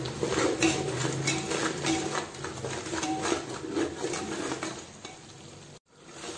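Slotted steel spoon stirring tomatoes frying in oil and ghee in a metal pot: repeated scrapes and clicks of the spoon against the pot over a light sizzle, dying down about five seconds in.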